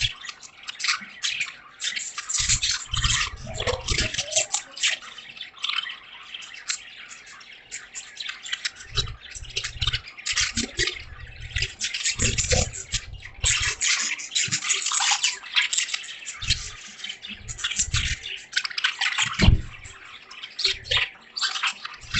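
A flock of caged budgerigars chattering, a dense run of quick chirps and warbles, mixed with rain dripping and occasional low thumps.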